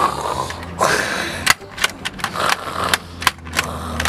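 Close-up handling noise: a hand rubbing and pressing a plush teddy bear on a table, giving rustling scrapes and scattered sharp clicks over a low hum.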